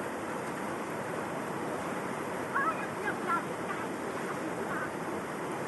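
Steady rush of flowing river water. About halfway through, a few short, wavering high-pitched calls stand out above it.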